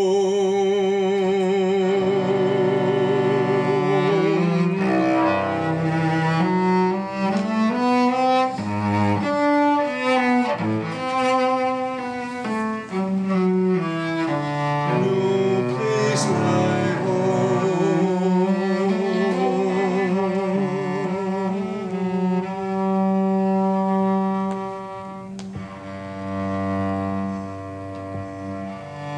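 Solo cello played with the bow: a long held note with vibrato, then a passage of quickly changing notes, then long sustained notes again, a little quieter near the end.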